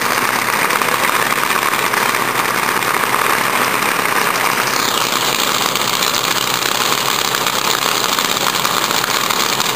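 Drag race car engines idling loudly and steadily at the starting line, with a change in the sound about five seconds in.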